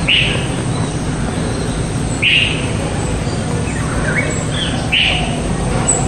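Small bird calling: three short, bright notes about two and a half seconds apart, with a few fainter chirps between, over a steady low background noise.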